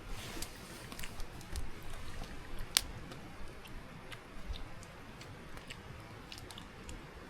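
A person chewing food, with scattered small clicks throughout and one sharp click about three seconds in.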